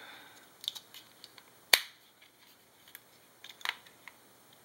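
Eneloop rechargeable AA batteries being pressed into the plastic AA tray of a camera battery grip: a few sharp plastic clicks, the loudest a little under two seconds in.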